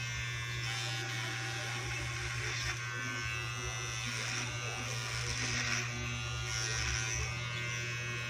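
Electric hair clippers buzzing steadily while cutting hair, the sound turning brighter and hissier a few times as the blades are pushed through the hair.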